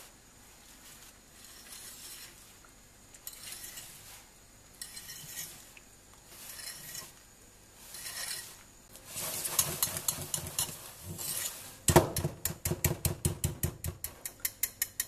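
Wire balloon whisk stirring a thick ricotta-and-cream mixture in a glass bowl: slow, soft strokes at first, then from about nine seconds in brisk whisking, with the wires clicking against the glass about six times a second near the end.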